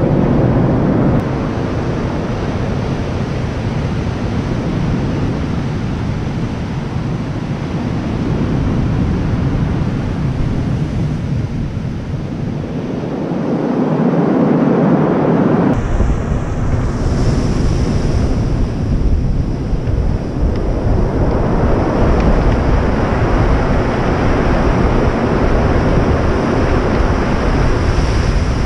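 Strong surf breaking and washing up a stony beach, with wind buffeting the microphone. The sound shifts abruptly about halfway through.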